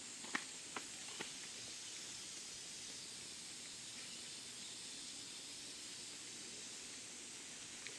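Footsteps on an outdoor path, three sharp steps in the first second and a half, over a faint steady high-pitched hiss of outdoor ambience.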